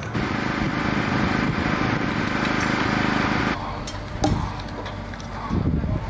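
Construction-site machinery running with a steady engine-like drone, which stops abruptly about three and a half seconds in. A few sharp clicks and knocks follow over quieter site noise, and a low rumble returns near the end.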